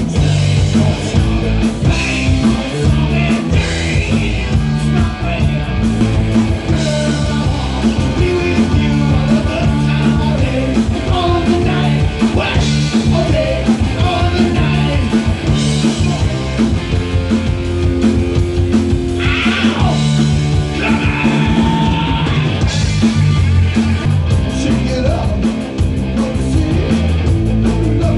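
Live rock band playing: electric guitar, bass guitar and drum kit with a steady dance beat, and a man singing lead vocals.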